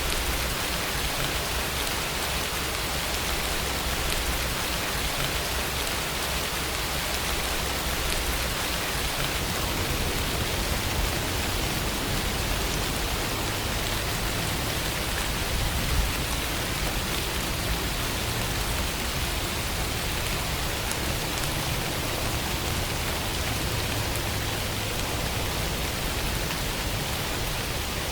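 Steady rain falling, with an even hiss of drops and a low rumble beneath.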